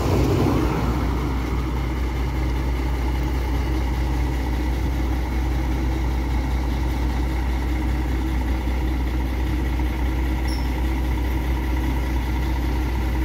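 Diesel engine of an intercity coach idling: a steady, unchanging low hum with a constant whine above it.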